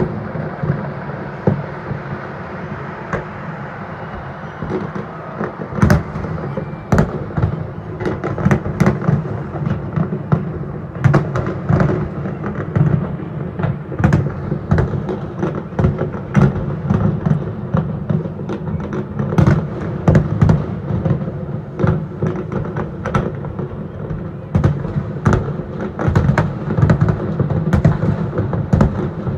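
Fireworks going off in quick succession: many sharp bangs and crackles over a continuous low rumble, growing denser about six seconds in.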